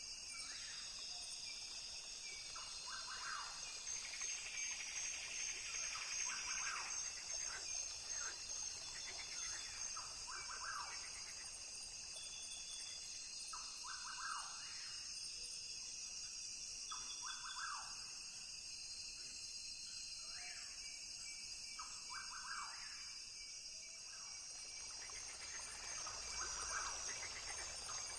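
Rainforest ambience: a steady high-pitched drone of insects, with a short call repeated every two to four seconds over it.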